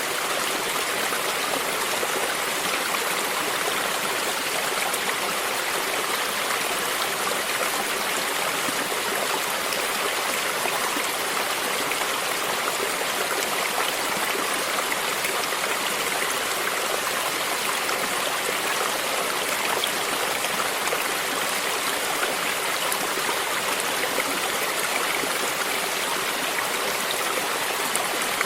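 Stream flowing steadily, water lapping and trickling over stones close by, with a small waterfall further off.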